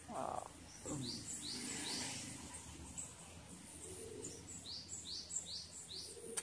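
A bird calling with short, high chirps that sweep downward, two about a second in and a quick run of four near the end, over faint rustling.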